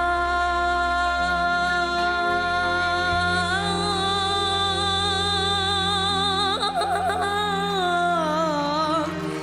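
A boy singing long held notes over sustained instrumental backing: one note held for about three seconds, a step up, a quick ornamented run about seven seconds in, then a falling phrase near the end.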